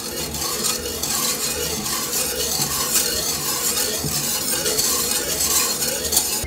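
Hand-washing sound effect: tap water running and splashing over hands at a sink, a steady hiss that breaks off abruptly at the end.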